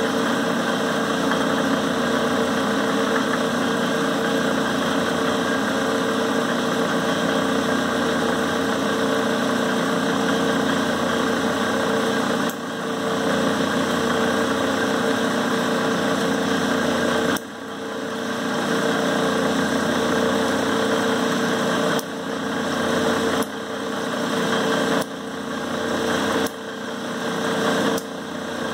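Clausing 5914 metal lathe running under power: its motor and Reeves variable-speed belt drive give a steady mechanical hum. In the second half the level drops suddenly several times and builds back up after each drop.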